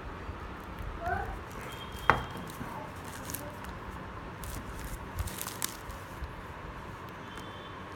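Light clicks and handling noises from a phone's retail box and its packaging as it is opened, with one sharp click about two seconds in.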